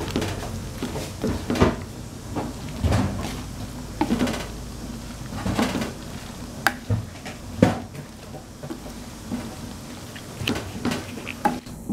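Green plastic spatula stirring and tossing boiled macaroni and minced meat in a large aluminium pan: irregular knocks and scrapes of the spatula against the metal, a second or so apart.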